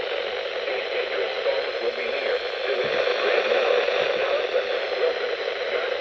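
Reecom weather alert radio's speaker playing a weak NOAA Weather Radio broadcast: a steady hiss of static, with a voice reading the warning barely audible underneath it.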